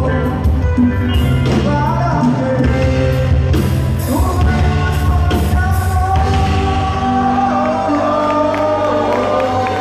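Live band playing: a steady bass line under electric guitars, congas and keyboards, with a singer's voice over the top.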